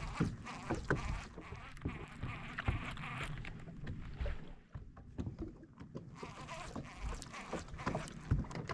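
Small irregular clicks and knocks from a baitcasting rod and reel being twitched and reeled, over a low, even wash of water and wind around a fishing boat.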